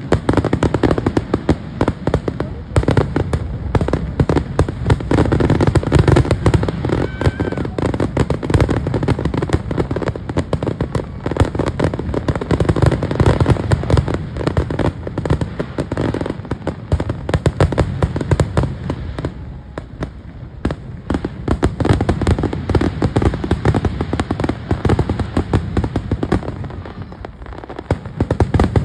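Fireworks display: a dense, continuous barrage of bangs and crackling, easing off briefly near the end before picking up again.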